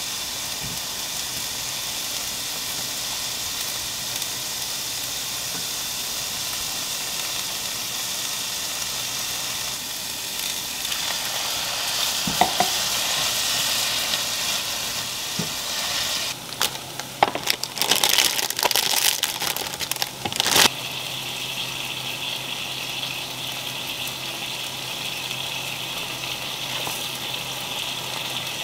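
Sliced onions sizzling steadily in a frying pan as the water cooks off. About halfway through, a spatula stirs and scrapes them in a run of irregular clattering strokes.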